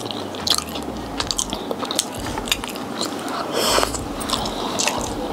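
Close-miked chewing and biting on sauce-coated fried chicken wings: many small wet mouth clicks and crunches, with a short hiss about three and a half seconds in.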